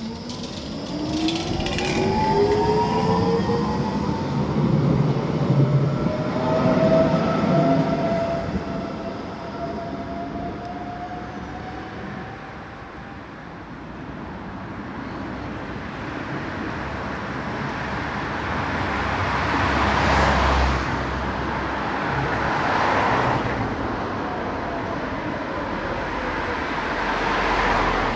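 Bombardier NGT12 low-floor tram pulling away, its traction motors giving several rising whines as it speeds up and passes. Later a Tatra tram set runs in, its steel wheels rumbling and hissing on the rails in surges, and slows to a stop near the end.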